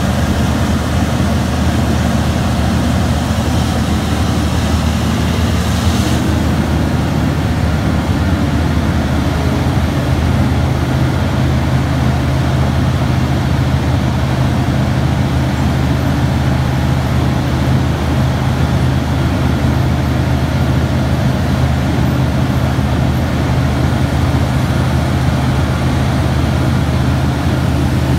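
Terex RH170 mining front shovel running, a loud steady low engine drone. A faint hiss on top stops about six seconds in.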